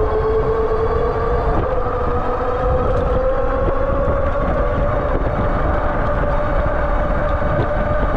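Aniioki A8 Pro Max e-bike's electric motor whining under throttle, the whine rising slowly in pitch as the bike speeds up, over a steady low rumble of wind and road noise.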